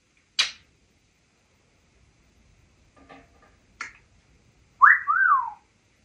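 African grey parrot whistling a short two-note whistle near the end, each note swooping up and then down. Two sharp clicks come earlier.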